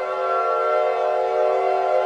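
A steady droning chord of several held tones, horn-like, holding one pitch without rising or falling.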